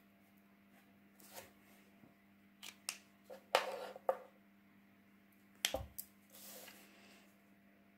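Plastic paint markers being handled on a table: a marker capped and set down, another picked up, giving a handful of sharp plastic clicks and knocks, the loudest a little before halfway and a heavier knock with a dull thud about three-quarters through.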